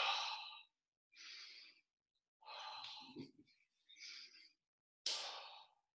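A man breathing hard while holding a wall sit: five separate breaths, about one every second and a half, the first and last the loudest.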